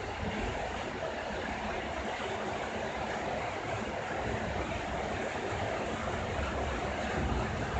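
Steady heavy rain with a low rumble of thunder underneath, which swells in the second half.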